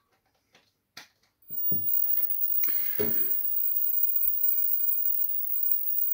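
A 1978 Pye CT450 colour television (Philips G11 chassis) switching on: a click, then about a second and a half in a mains hum and buzz start suddenly with a couple of thumps. The very high-pitched whine of the line output stage runs steadily alongside it as the set comes up.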